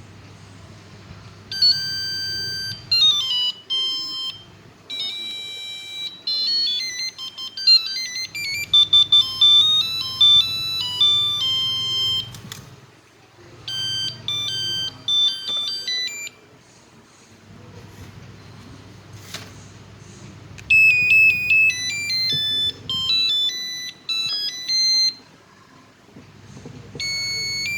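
Ericsson mobile phone ringtones: electronic beeping melodies of quick stepped notes, several short tunes played one after another with brief pauses between them.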